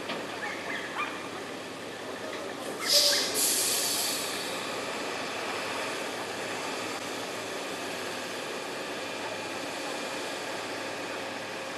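Heavy log truck under a full load of logs, its engine running steadily as it moves slowly, with a short loud hiss about three seconds in.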